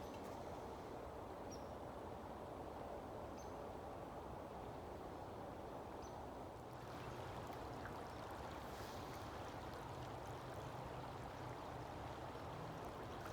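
Faint steady rushing noise of the outdoor surroundings, with a few brief high chirps in the first half.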